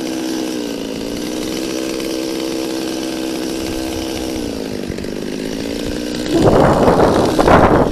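Two-stroke chainsaw running at a steady low speed, its pitch dipping slightly a couple of times; about six seconds in it is revved up hard and becomes much louder and rougher.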